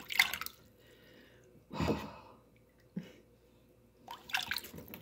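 Water splashing and dripping in several short bursts as a plastic slotted spoon dips into and lifts out of a shallow plastic tub of water holding minnows.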